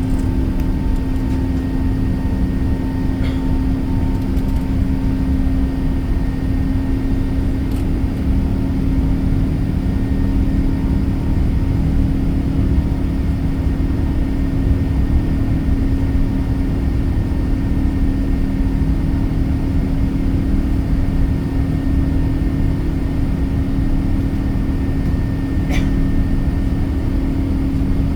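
Steady cabin noise inside an Airbus A380-800: a constant low rumble from the engines and airflow with a steady hum running through it.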